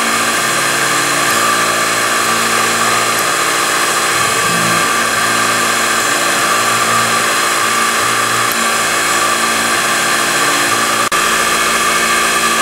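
Syil X3 CNC mill pocket-milling hexagon holes in an aluminium bar with a 3 mm carbide end mill under flood coolant: a steady spindle whine with the noise of the cut. There is a brief break about eleven seconds in.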